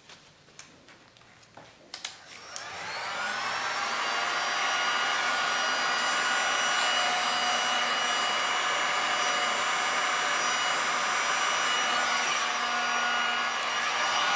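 Heat gun with a flat spreader nozzle switched on about two seconds in, after a few faint clicks. It spins up to full speed over about two seconds, then runs steadily with a whine and rushing air as it blows across wet epoxy resin on a tile.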